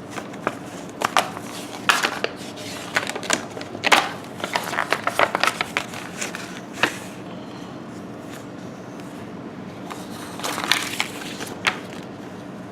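Cardboard board-game pieces and box being handled: irregular rustles, clicks and taps, busiest in the first half and again briefly near the end, over a faint steady hum.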